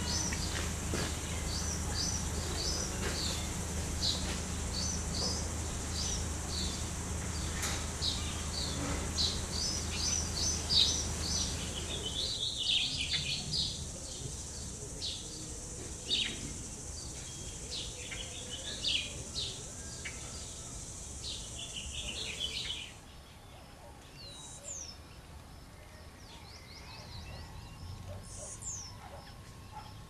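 Outdoor wildlife sounds: many short, repeated bird chirps over a steady high-pitched insect buzz. A low hum drops out about 12 seconds in. The buzz stops about 23 seconds in, leaving sparser calls.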